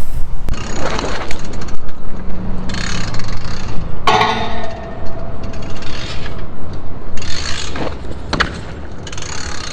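Rough scraping and rubbing with a steady low rumble underneath. A sharp knock about four seconds in rings on briefly, and a second sharp knock comes near the end.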